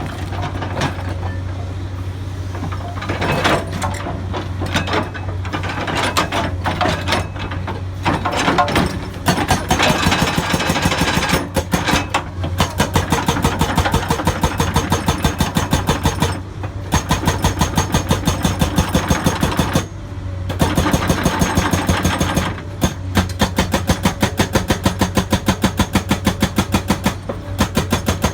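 Hydraulic breaker hammer on a Komatsu excavator pounding rock in rapid runs of several blows a second, stopping briefly every few seconds. The excavator's diesel engine hums steadily underneath.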